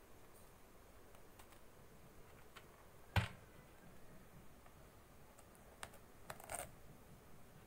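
Faint scattered clicks and taps from handling a plush item in its plastic packaging tray, with one sharper knock about three seconds in and a short cluster of clicks near the end.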